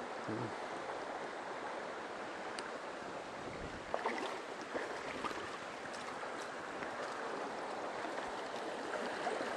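Mountain stream running steadily, an even rush of water, with a few faint short knocks about four to five seconds in.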